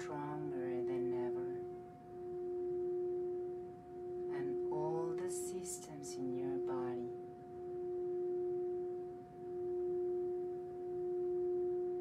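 Metal singing bowl rubbed around its rim with a mallet, singing a steady tone with a clear overtone an octave up that swells and fades about every two seconds. A soft voice sounds briefly twice, near the start and again around the middle.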